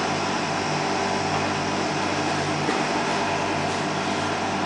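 Steady hum and hiss of a running cooling appliance, even in level throughout, with no knocks or other distinct events.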